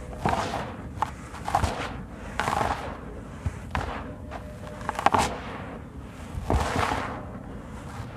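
Hands scooping and crumbling dry, dusty sand-cement mix in a plastic tub: about six hissing, crunchy bursts as clumps break apart and the grains pour back down, with a few sharp ticks in between.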